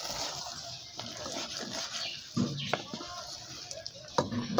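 Wooden spoon stirring and scraping rice and beaten egg in an aluminium pot, over a steady hiss, with a couple of sharp knocks of the spoon against the pot.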